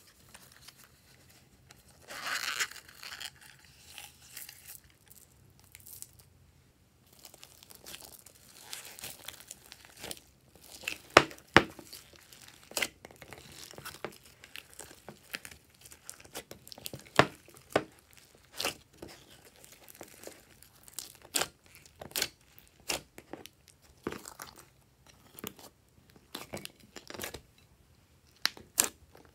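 Glossy slime being stretched, folded and pressed by hand, giving irregular sticky clicks and pops that grow frequent after about eight seconds. A short rustle comes about two seconds in.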